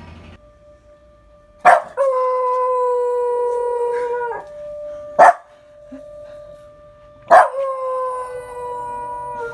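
Welsh Corgi mix dog howling along to a siren: two long howls, each starting with a sharp, very loud attack and sinking slightly in pitch. A lone sharp crack comes between them. The siren's steady, faint tone holds underneath.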